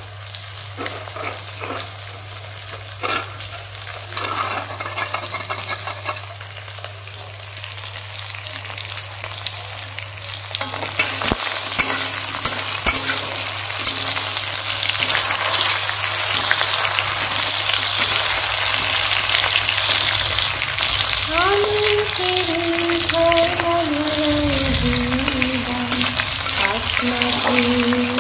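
Oil sizzling loudly as chopped tomatoes, ginger and curry leaves fry in an aluminium kadai and are stirred with a metal spatula. The sizzling starts abruptly about a third of the way in. Before that there are only soft scattered clicks of a spice paste being mixed by hand in a small steel bowl. In the last several seconds an unidentified tone slides down in pitch and then holds steady under the sizzle.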